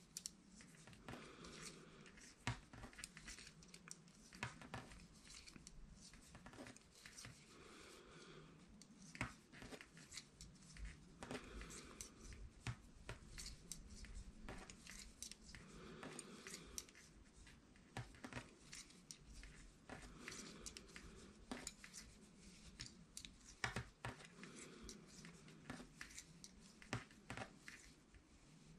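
Knitting needles clicking faintly and irregularly as stitches are purled, with soft rustling of wool yarn between the clicks.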